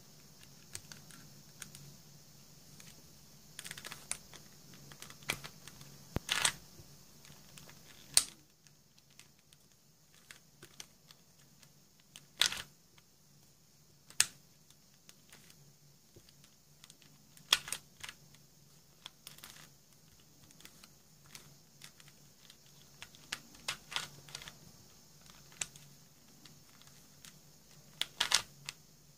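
Plastic pieces of a four-layer Super Square star-mix twisty puzzle clicking and clacking as its layers are turned, in irregular sharp clicks with a few louder snaps.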